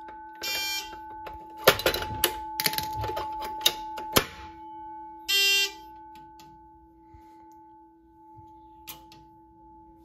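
Fire alarm horn sounding short blasts about five seconds apart, the panel in alarm and pulsing it on a slow code 3. A steady faint electronic tone runs underneath, and clicks and rattles of a pull station being worked with a screwdriver come in the first few seconds.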